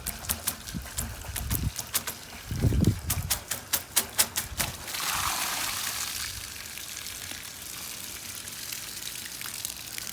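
A run of sharp clicks and knocks for the first few seconds, then water rushing and pouring through a gutter and downspout being flushed out, settling into a steady flow as the clog clears.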